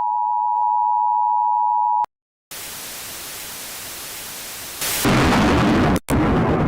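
Emergency Alert System two-tone attention signal, a steady dual tone of about 853 and 960 Hz, which cuts off abruptly about two seconds in. After a moment of silence a loud hiss of static starts, grows louder about five seconds in and breaks off briefly near six seconds.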